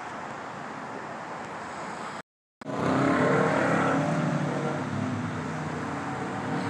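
Steady street traffic. After a brief cut-out about two seconds in, a car engine accelerates past, loudest about a second later and then slowly fading.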